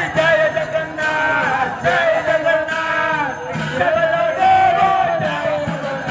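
Devotional kirtan sung by a procession crowd: a wavering, held chanted melody with jingling percussion and crowd voices behind.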